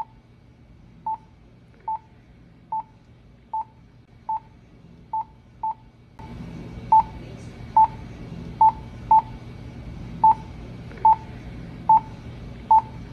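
Spacelabs bedside patient monitor giving its short single-tone pulse beep with each heartbeat, about once every 0.8 seconds, roughly 72 a minute and not quite evenly spaced. A steady hum underneath grows louder about six seconds in.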